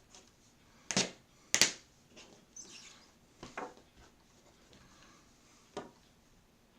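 Sharp knocks and taps of craft tools on a tabletop, two loud ones close together about a second in, followed by quieter clicks, a short rustle and one more tap near the end.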